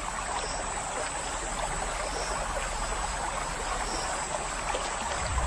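River water trickling and lapping around a crocodile swimming in the shallows, a steady, even splashing.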